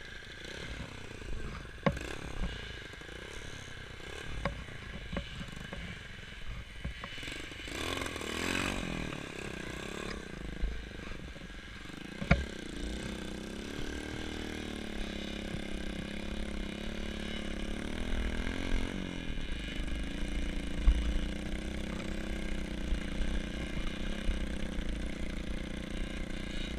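A small off-road engine running. It revs up and back down about eight seconds in, then runs on with a wavering pitch, over a low rumble and a few scattered clicks and knocks.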